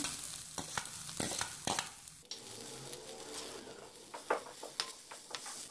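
Spatula stirring and scraping shredded chicken and onion filling around a kadhai, with light sizzling as it fries. The scrapes and clacks come thickest in the first two seconds, then the stirring goes quieter.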